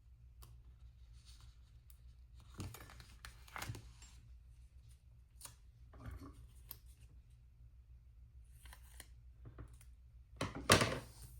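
Scissors cutting a small decorative piece in half: a few short, separate cutting sounds with light handling noise between them, the loudest near the end.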